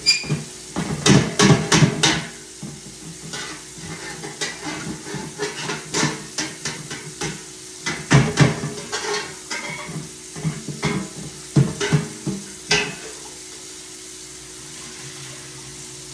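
Stainless steel cooking pot being handled at the stove: irregular bursts of metal clattering, clinking and scraping, over a steady low hum. The clatter dies away in the last few seconds.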